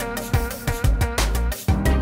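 Background music with a steady drum beat and bass.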